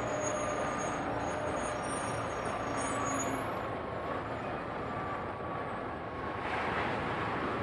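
Front-end wheel loader's engine running steadily as it raises a bucket of clay over a hopper, with a faint high whine throughout.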